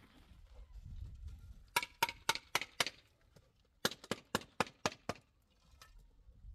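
Two runs of sharp, hard knocks, about four a second: five strikes, a short pause, then six more.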